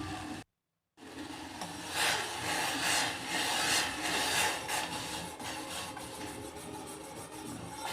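A spoon stirring and scraping around a pot of water with coriander seeds and spices, in repeated scraping strokes.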